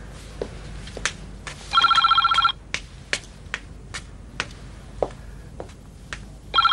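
Telephone bell ringing twice, each short ring lasting under a second, about five seconds apart. Between the rings, footsteps click on the floor at about two steps a second.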